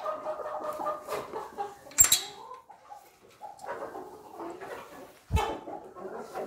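Chickens clucking and calling in a backyard coop, with a sharp click about two seconds in and a low thump a few seconds later.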